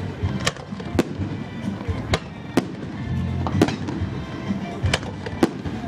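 Aerial firework shells bursting overhead in a quick, irregular series of sharp bangs, roughly one or two a second, over background music with a steady bass.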